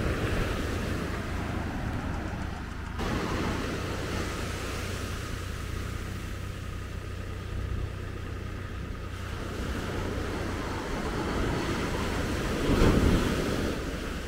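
Surf washing onto a sandy beach, with wind rumbling on the microphone. A louder rush of water comes near the end.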